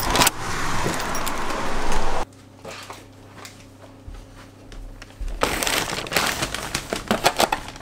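Keys and a door lock rattling, with a bag rustling, for about two seconds, then it cuts to a quiet room hum. About five seconds in, a plastic carrier bag starts crinkling and rustling as it is set down on a wooden table.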